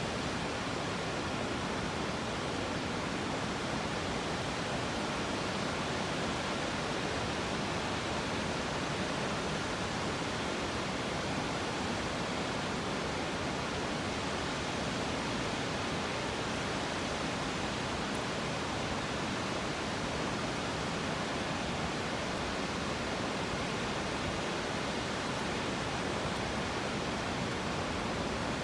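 Steady, unbroken rush of a waterfall swollen by heavy rain, running in full spate.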